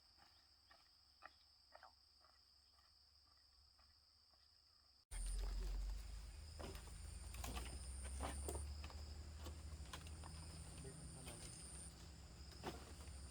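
Outdoor rural ambience: a steady high insect drone with scattered light clicks and rustles. About five seconds in, the sound cuts abruptly to a louder low rumble like wind on the microphone, with more rustling clicks and high insect tones starting and stopping.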